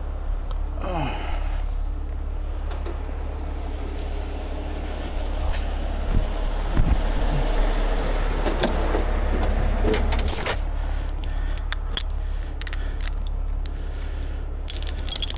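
Heavy diesel engine running steadily, its noise rising for several seconds in the middle, with a few sharp metallic clinks.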